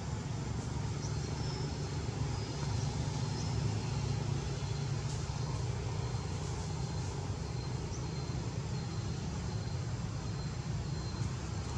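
Outdoor ambience: a steady low rumble throughout, with faint, short high chirps scattered through it.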